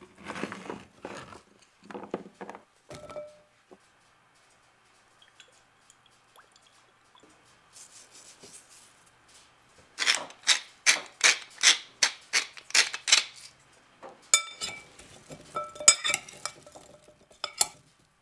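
Cubes of raw butternut squash knocking and sliding into a glass bowl. A spice mill then grinds in even strokes, about three a second, for several seconds. A metal spoon tosses the cubes near the end, clinking and ringing against the glass bowl.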